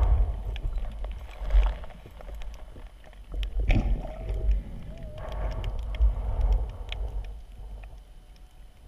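Underwater surf heard through a GoPro housing: a low churning rumble of moving water that swells and fades, with scattered clicks of sand and shell. A short wavering tone sounds from about three and a half to five seconds in.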